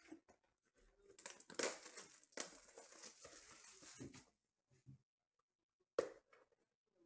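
Plastic shrink wrap being torn and crinkled off a sealed trading-card hobby box for about three seconds, then a single sharp knock about six seconds in.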